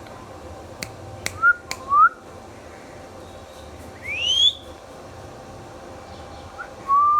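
Indian ringneck parakeet giving short rising whistles, four in all, the loudest a longer upward sweep a little past the middle. A few sharp clicks sound about a second in.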